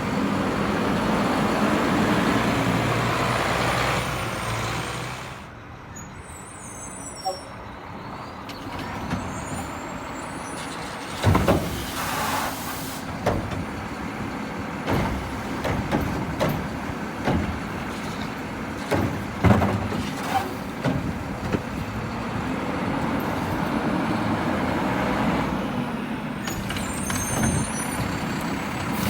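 Garbage truck running loud for the first few seconds, then easing off, followed by a string of sharp knocks and clunks as containers are handled and dumped. There are hisses of air brakes, and the engine builds up again near the end.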